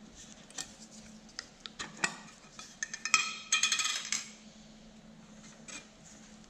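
Handling noise of small hard objects: a run of light clicks and knocks, then, about three seconds in, a second-long cluster of ringing clinks.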